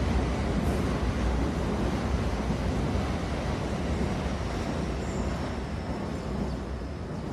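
Train running on the rails: a steady low rumble and noise that slowly grows quieter, with a faint thin high squeal coming in about five seconds in.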